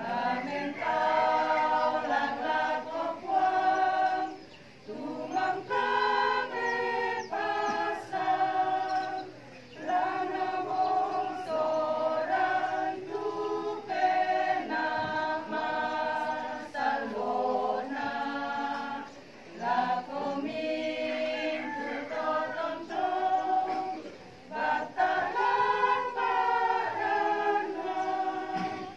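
A choir of elderly men and women singing a hymn unaccompanied, in long held phrases with short breaks for breath between lines.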